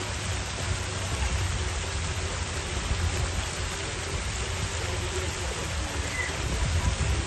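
Steady splashing and hiss of water spraying from splash-pad fountain jets into a shallow play pool.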